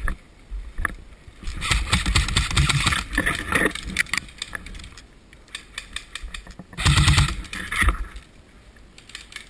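Footsteps crunching in snow and gear rattling as a person runs, in two loud stretches: one from about one and a half to four seconds in, and another around seven to eight seconds in.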